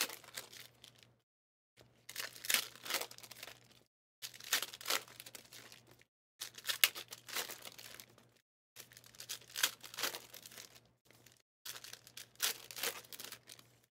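Foil trading-card pack wrappers being torn open and crinkled in hand, in about six bursts of crackling rustle separated by short silent gaps.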